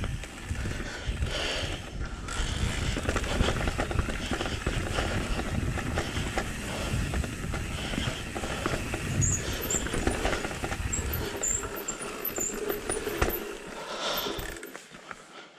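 Mondraker Level R electric mountain bike riding down a rough forest trail: tyres rolling over dirt, roots and stones, with a steady clatter of chain and frame rattle. The noise dies away near the end as the bike slows to a stop.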